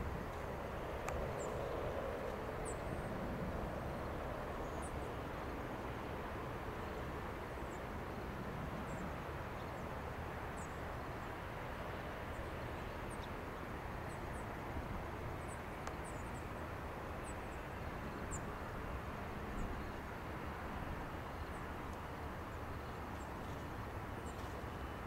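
Steady distant rumble of airport ambience with an airliner far off on the runway, while a small bird gives short high chirps every second or two.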